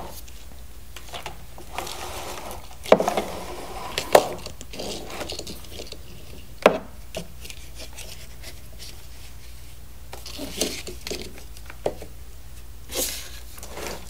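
Plastic parts of an Octonauts Octo Lab playset being handled and fitted together: hoses rubbing and pushed onto fittings, with a few sharp plastic clicks and knocks, the loudest about three, four and six and a half seconds in.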